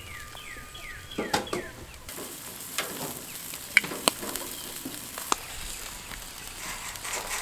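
Chicken pieces sizzling on a wood-fired grill, with scattered sharp pops and clicks. A bird chirps a few times in quick falling notes in the first second or so.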